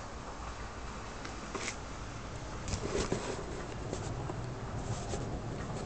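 Steady hiss of night-time background noise during a weak storm, with scattered small clicks and taps.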